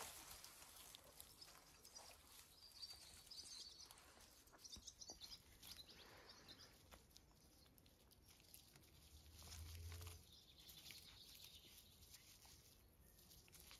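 Near silence: faint rustling and small clicks of puppies scuffling over a stick in leaves and moss, with a few faint bird chirps and a brief low rumble about two thirds of the way through.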